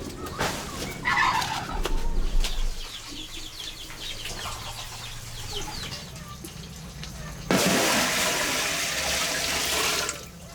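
A chicken calls about a second in, followed by a run of small bird chirps. Near the end a loud, even rushing noise starts abruptly, lasts about two and a half seconds and cuts off.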